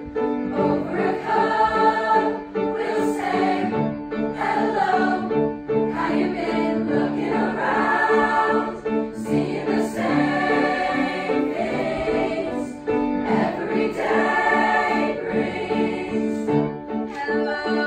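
Youth choir of boys' and girls' voices singing a song together, accompanied by a grand piano.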